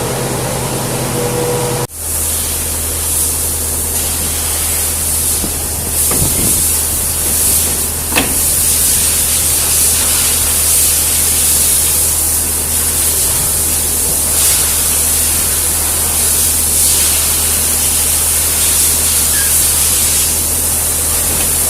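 Truck-mounted Topre refrigeration unit running with the engine at raised RPM: a steady airy hiss of its fans over a low hum.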